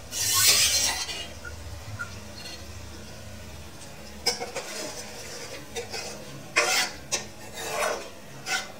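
Steel ladle scraping and clinking against an aluminium karahi as mutton pieces are stirred, in irregular scrapes from about four seconds in. A hiss about a second long comes at the very start and is the loudest sound.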